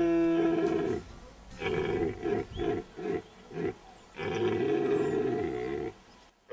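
Red deer stag roaring in the rut: a long roar, then a run of about six short, clipped roars, then another long roar that ends shortly before the end.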